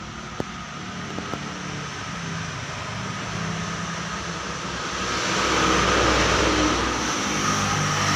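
Background road traffic, a steady rumble that swells about five seconds in as a vehicle passes.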